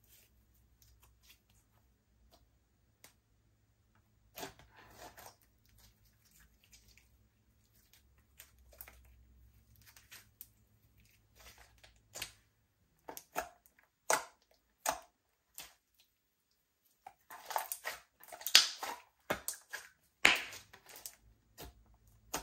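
Slime being kneaded and mixed by hand, giving short wet clicks, pops and crackles. Sparse at first, they come more often and louder towards the end.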